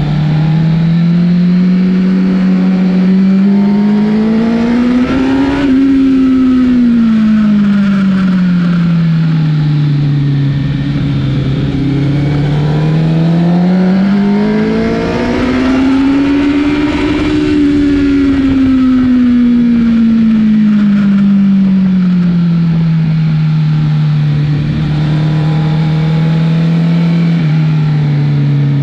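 Honda CBR1000 inline-four motorcycle engine running under load, rising smoothly in pitch to a peak about six seconds in and falling back. It then climbs again to a higher peak a few seconds later and slowly eases down to a steady lower speed, as the bike accelerates and slows twice.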